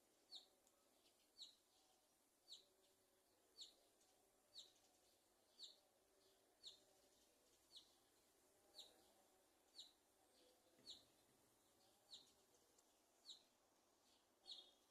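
A small bird giving faint, short chirps, each dropping in pitch, in a steady series of about one a second.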